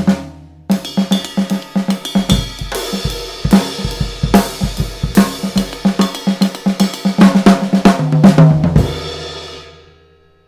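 Drum kit played fast: snare and toms in a pattern built on the Swiss Army triplet rudiment, with hi-hat and cymbals and bass drum kicks joining about two seconds in. The playing stops near the end and the cymbals ring out and fade.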